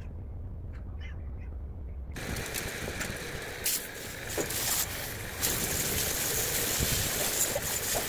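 A low steady hum, then, about two seconds in, a high-pressure water jet from a washer wand blasting the metal frame of an old road-cutting saw: a dense, steady hiss of spray that grows louder from about five seconds in, with a few knocks.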